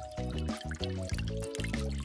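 Upbeat background music with a steady beat and held melody notes.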